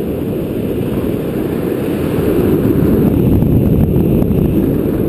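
Wind buffeting an action camera's microphone on a paraglider in flight: a loud, steady rumble that slowly grows louder.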